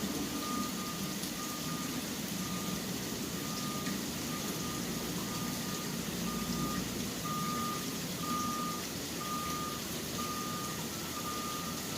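City street ambience in rain: a steady hiss of rain over a low traffic rumble, with a single-pitched electronic beep repeating about once a second throughout.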